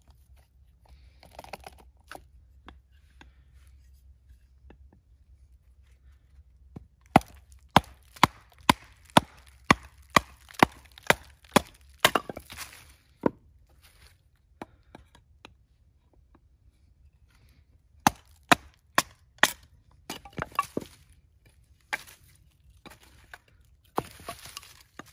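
Splitting a small log by batoning: a wooden stick striking the back of a knife blade set on the log's end. Sharp knocks come about two a second in runs, a long run of about a dozen strikes partway through and shorter runs later, with pauses between.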